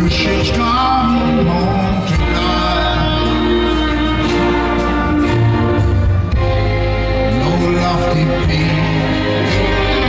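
Live rock band playing a slow song with a singing voice, drums, electric guitars and keyboards, heard through a large outdoor PA.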